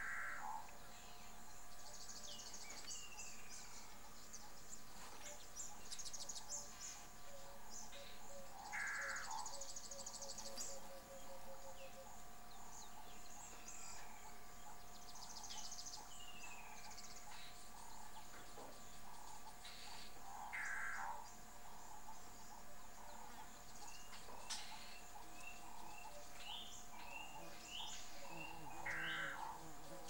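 Bush ambience: birds calling in short phrases every several seconds over the trilling and steady hum of insects.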